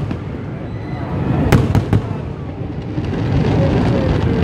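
Fireworks display: a dense low rumble of shell bursts, with three sharp bangs in quick succession about a second and a half in, and a spray of smaller pops and crackles near the end.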